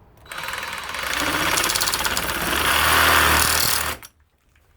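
A power saw with a coarse, rough cutting blade running and cutting through the plastic body of a female plug end clamped in a vise. It starts about a third of a second in with a fast, buzzing rhythm, gets louder, and stops abruptly about four seconds in.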